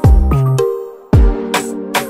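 Electronic background music: sharp drum hits with deep bass notes that slide down in pitch, under held synth notes.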